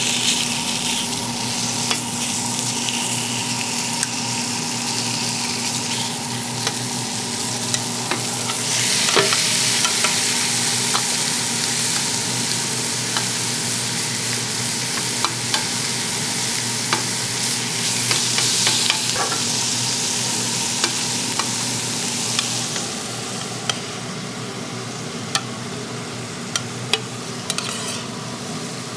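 Food sizzling and frying in a hot pan, with sharp clicks of a utensil against the pan. The sizzle swells about a third of the way in and again past the middle, then eases near the end, over a steady low hum.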